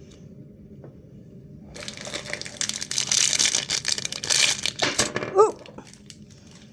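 Plastic blind-bag wrapper crinkling loudly as it is torn open by hand, starting about two seconds in and lasting about three seconds.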